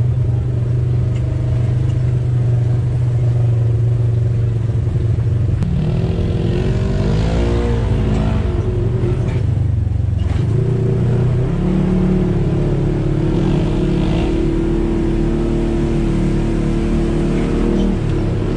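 Polaris RZR side-by-side's engine running under way on a muddy trail. Its pitch rises and falls between about six and ten seconds in as the throttle changes, then holds steady.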